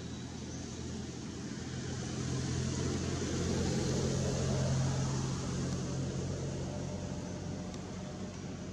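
An engine droning with a steady low hum, swelling over a few seconds in the middle and easing off again, the way a passing motor does.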